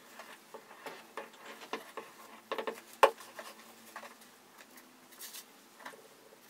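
Thin pine slats being handled and set into a wooden jig on a workbench: scattered light wooden clicks and taps, with one sharp knock about three seconds in.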